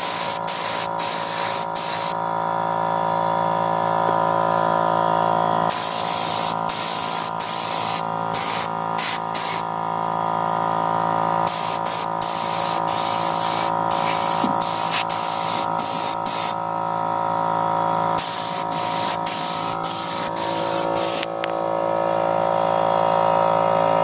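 Gravity-feed spray gun (a $16 Harbor Freight model) hissing as it sprays paint onto a car's suspension control arm, in about four bursts of a few seconds each with short breaks between. A steady machine hum runs underneath.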